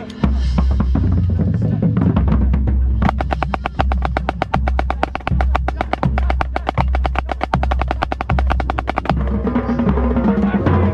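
Marching drumline playing, with the center snare drum closest: fast, dense snare strokes, thickest from about three to nine seconds in, over low drum hits.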